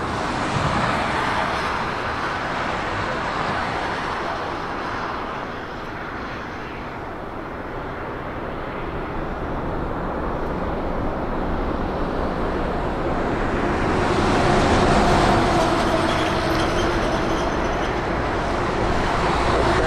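Jet airliner engine noise: a steady rumble that eases off, then swells from about twelve seconds in and stays loud to the end, with a faint whine coming in over it.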